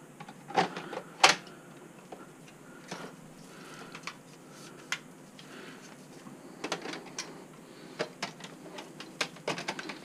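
Plastic clicks and knocks of a Shark NZ801UKTSB upright vacuum's tube, hose and lift-away section being fitted back together, with no motor running. A sharp click about a second in is the loudest, and a quick run of clicks and rattles comes near the end.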